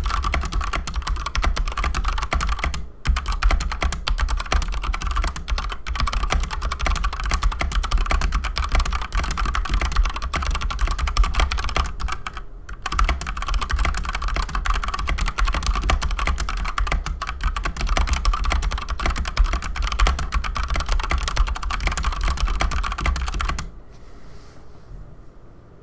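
Steady, fast typing on a Keychron C2 full-size mechanical keyboard with stock Gateron Brown tactile switches and PBT keycaps: a dense run of keystroke clacks. It pauses briefly twice and stops near the end.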